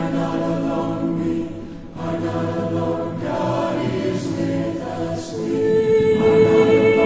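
Background music: a choir singing slow, sustained chords, with a higher held note coming in about five and a half seconds in.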